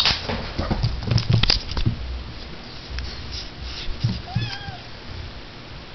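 Kitten giving one short, rising-then-falling meow about four and a half seconds in, after a couple of seconds of scattered knocks and scuffles from its play on the rug.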